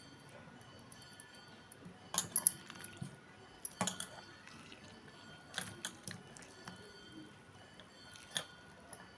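Hand squeezing sliced bitter gourd in a steel bowl of water: scattered splashes and drips as the slices are pressed out, loudest around two and four seconds in.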